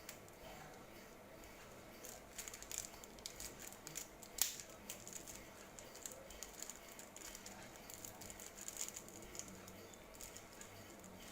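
Hands working on a laptop: light, irregular clicks and taps, with one sharper click about four and a half seconds in.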